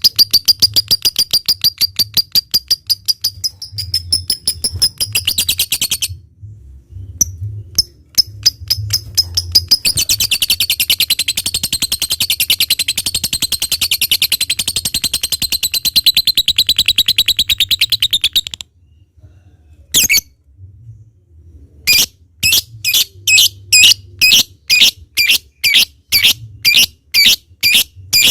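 A lovebird chattering in fast, high-pitched runs of repeated notes: the long, rapid 'ngekek' trill. It breaks off twice, then gives evenly spaced sharp calls about three a second near the end.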